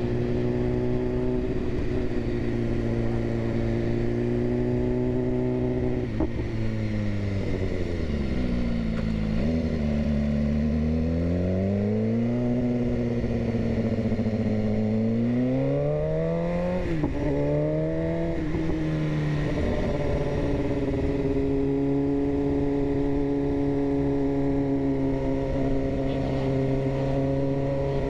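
BMW S1000RR inline-four sportbike engine under way with wind rushing past: the engine holds steady revs, then about six seconds in the revs fall away as the bike slows, climb again for several seconds, and drop a step with an upshift about two-thirds of the way through before holding steady again.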